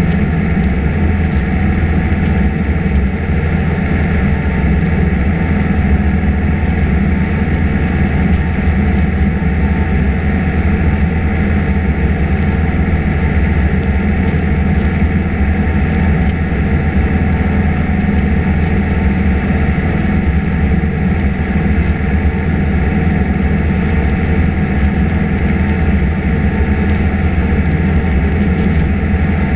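Piper PA-28 Cherokee's piston engine and propeller running steadily in cruise flight, heard inside the cabin as a constant drone.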